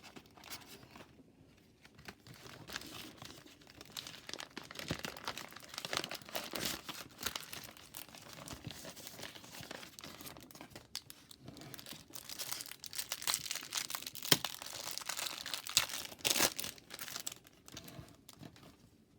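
A hockey card pack's wrapper crinkling and tearing as it is opened by hand, with irregular crackles that grow busier near the end.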